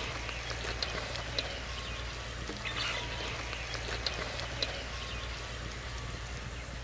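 Oil sizzling in a kadhai as samosas deep-fry, a steady hiss with many small crackling pops scattered through it.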